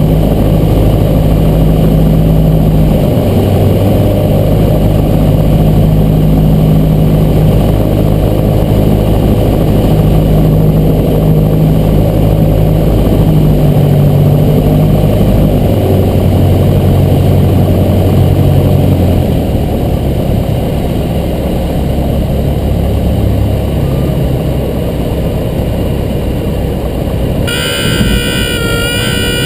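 Cessna 172's piston engine droning steadily, its level dropping a little about two-thirds of the way through. A high steady tone sets in near the end.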